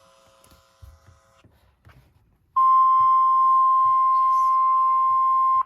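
NOAA Weather Radio warning alarm tone: one steady, loud, high single-pitch tone near 1 kHz. It starts abruptly about two and a half seconds in and lasts about three seconds before cutting off. It signals the warning broadcast that follows.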